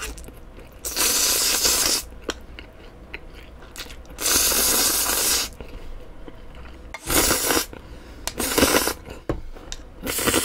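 A person slurping cold spicy mixed noodles (bibim-myeon) into the mouth with chopsticks: five loud slurps, the first two about a second long and the last three shorter, with soft wet chewing between them.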